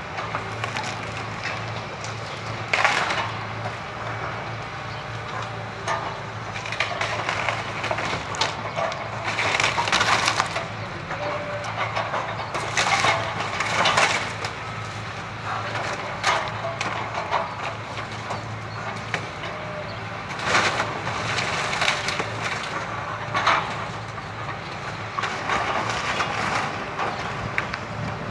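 Wood cracking and splintering in repeated irregular crashes as a Hitachi excavator's grab pulls apart a house's timbers, with the excavator's diesel engine running steadily underneath.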